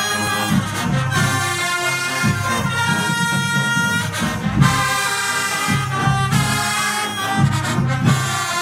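High school marching band's brass section playing a tune: trumpets and other horns hold loud chords over a rhythmic low sousaphone line.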